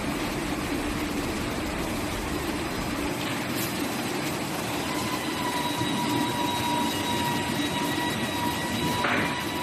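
Wide belt sander for primer sanding running with a steady mechanical noise. About five seconds in, a steady whine sets in over it, and a brief rasp comes near the end.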